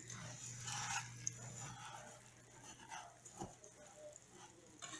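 Quiet scraping of a wire whisk stirring rice toasting in butter in a stainless saucepan, with a couple of small clinks.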